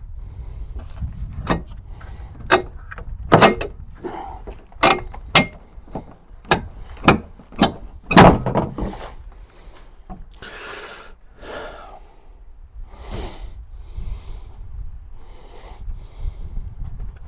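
A string of sharp knocks and clicks as hard parts are handled, the loudest about eight seconds in, followed by softer rustling and scraping, typical of working a truck's headlight assembly and its plastic parts by hand.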